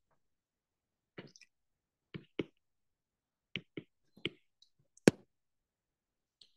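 Stylus tip tapping on a tablet's glass screen during handwriting: about seven short, sharp clicks at irregular intervals, the loudest about five seconds in.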